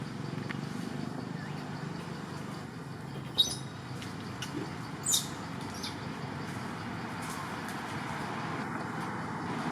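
A monkey giving two short, high-pitched squeaks about two seconds apart, with a few fainter squeaks between them, over steady background noise.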